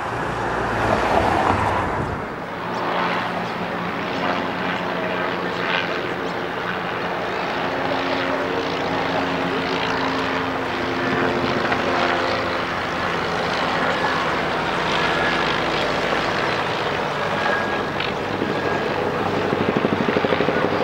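Propeller drone of Tiger Moth biplanes' piston engines flying past, a steady pitched hum over the rumble of steam locomotives working hard under load.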